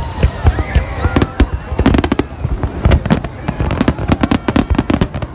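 Aerial fireworks display: many overlapping bangs and crackles from bursting shells in quick succession, growing denser about halfway through.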